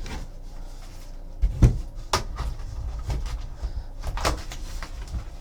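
A cardboard box of 8x10 photos being opened and handled: a series of sharp knocks, clicks and scrapes of cardboard on a table, the loudest knock about one and a half seconds in.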